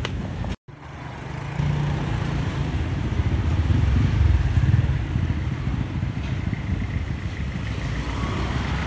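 A motor vehicle engine running, rising to its loudest about four to five seconds in and then easing off. The sound drops out completely for a moment near the start.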